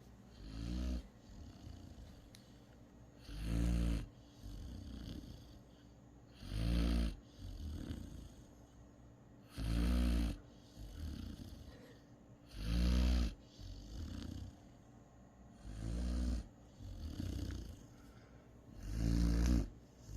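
Great Dane puppy snoring in its sleep: seven loud snores about three seconds apart, each followed by a quieter breath.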